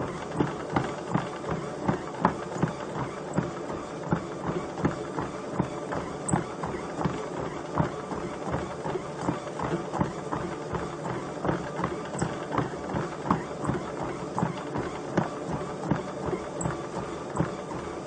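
Footfalls of someone running on a treadmill: regular thuds, about two or three a second, over the machine's steady running sound.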